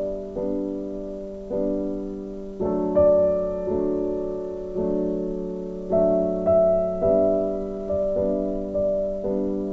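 Background music: soft piano, notes and chords struck about once a second and left to ring.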